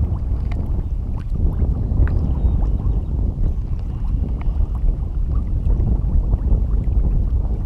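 Wind rumbling on the microphone: a low, uneven rumble with no steady pitch.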